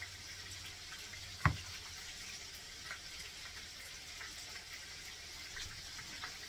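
Steady sizzle of hamburger patties frying in a skillet, with a single sharp knock about one and a half seconds in and a few light clicks.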